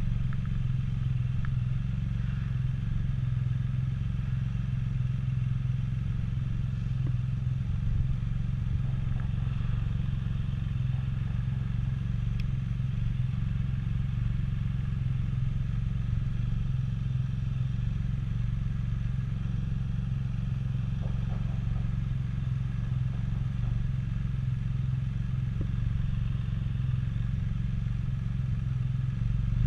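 Can-Am Spyder F3-S's Rotax 1330 inline three-cylinder engine idling steadily.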